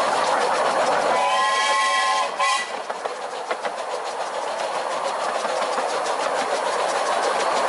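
15-inch gauge Bassett-Lowke Class 30 Atlantic steam locomotive running, with a steady rushing sound throughout. About a second in, its whistle sounds once for about a second and a half, with several tones at once.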